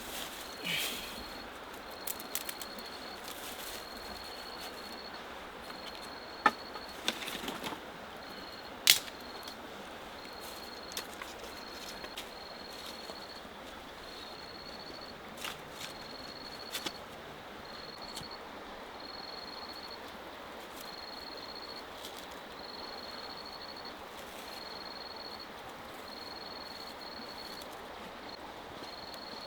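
An insect chirping steadily, a high note of one pitch repeated about once every second or so, over a soft background hiss. A few sharp clicks or knocks cut in, the loudest about six and nine seconds in.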